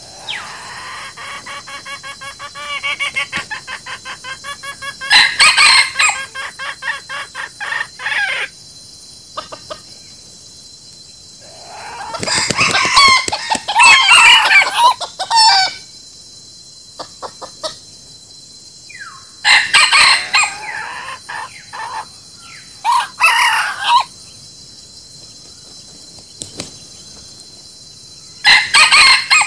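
Free-range chickens calling. A run of rapid clucks comes faster over the first several seconds, then a rooster crows for about four seconds midway, followed by a few shorter loud calls near the end.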